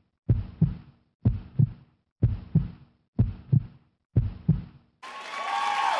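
A heartbeat sound effect: five low double thumps, lub-dub, about one a second. About five seconds in, a louder continuous din cuts in suddenly.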